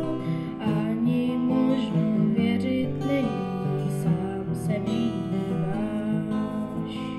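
Acoustic guitar being played, chords picked and strummed at an even pace, with a higher melody line held over them.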